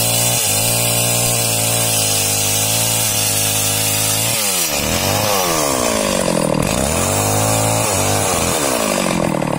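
Small two-stroke chainsaw ripping lengthwise along a log. The engine holds a steady high speed for about the first four seconds, then its pitch repeatedly drops and climbs again as the chain loads up in the cut.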